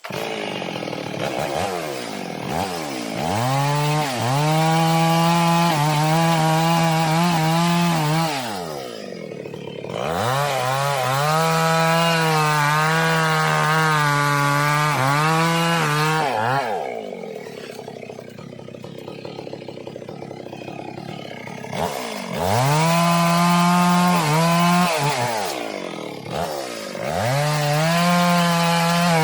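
Stihl two-stroke chainsaw held at full throttle in several long spells, cutting into a tree trunk. Between the spells it drops back toward idle and revs up again, four times.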